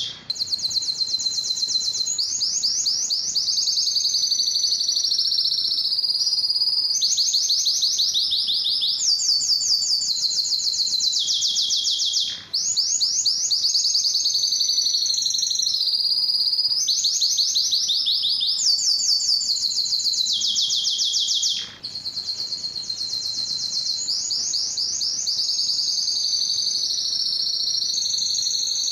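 Male domestic canary singing a long, unbroken song of fast trills and rolls, switching to a new phrase every second or two. The song breaks off briefly twice, about a third and about three-quarters of the way through.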